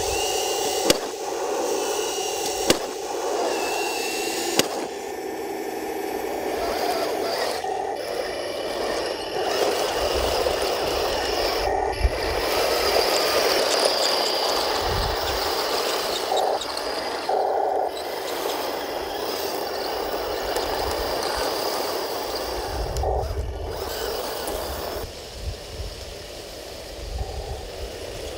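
Radio-controlled Taigen M41 Walker Bulldog tank driving over loose dirt: electric drive motors and gearboxes running with the scraping and rattling of the tracks. A few sharp clicks in the first five seconds.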